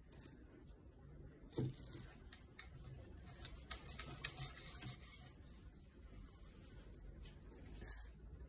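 Faint rubbing and rustling of hands handling painting supplies on a plastic-covered table, in irregular short scrapes, with a small knock about one and a half seconds in.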